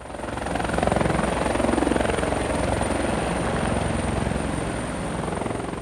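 Rotor aircraft sound, a rapid, even beating with a steady high whine, fading in over the first second and starting to fade near the end.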